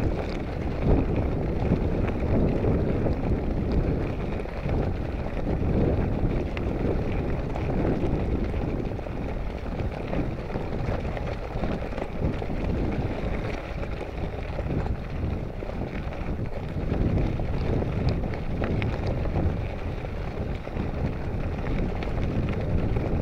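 Steady wind noise buffeting the microphone of a camera carried on a bicycle while riding, a continuous low rush with no distinct events.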